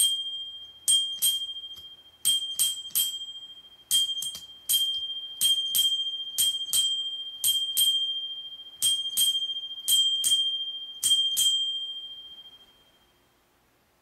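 A cheap dual-band ring bicycle bell struck repeatedly, about twenty quick dings in clusters of two or three, each on the same high ringing note. The ringing fades out near the end, and the bell peaks at about 88 decibels on a sound meter.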